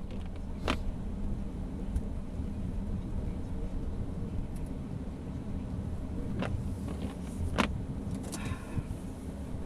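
Vehicle engine running with a steady low rumble, with three sharp clicks or knocks and a brief rattle near the end.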